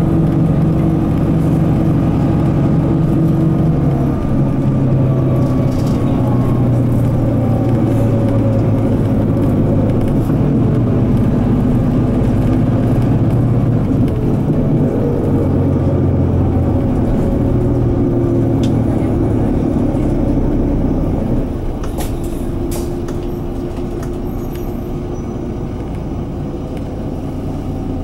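Running sound inside a Mitsubishi Fuso Aero Midi MK bus: its 6M61 diesel engine pulls under load through the manual gears, its note stepping and rising. About 21 seconds in it eases off and goes quieter, with a few light clicks just after.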